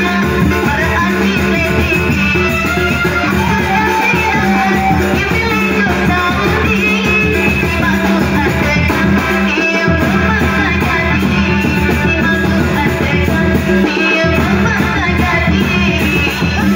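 Live Sasak gamelan ensemble playing lively dance music: drums keeping a driving beat under gongs and bronze kettle-gong chimes, with the low drumming dropping out briefly about ten and fourteen seconds in.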